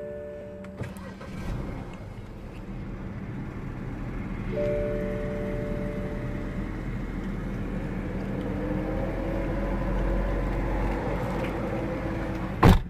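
Car interior sound of a 2008 BMW 535i E60 (twin-turbo inline-six) driving slowly: steady engine and road hum. A steady tone sounds at the start and again about five seconds in, a faint rising whine joins in the second half, and there is one sharp loud knock near the end.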